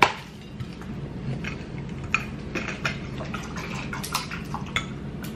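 Eating sounds at a table: scattered soft clicks and taps of a taco being bitten and chewed and a plate being handled, with a sharp click at the start, over a steady low hum.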